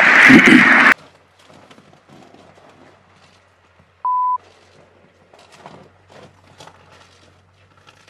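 Coughing that breaks off about a second in, followed by faint scattered ticks and rustles over a low hum. A single short beep sounds about four seconds in.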